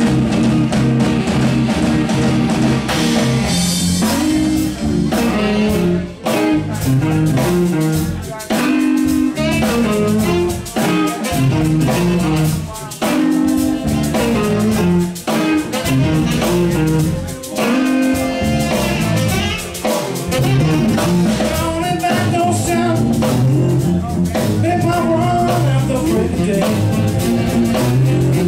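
Live blues band playing, with electric guitar, electric bass, keyboards, drum kit and congas, and a singer's voice over them.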